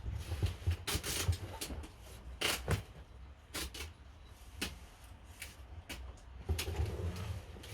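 Irregular handling noise: scattered clicks, knocks and rustles of objects being moved and handled.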